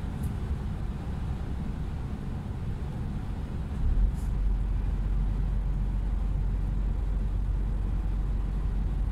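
Steady low engine and road rumble of a moving vehicle heard from inside its cab. About four seconds in there is a brief louder bump, and the deep rumble is heavier from then on.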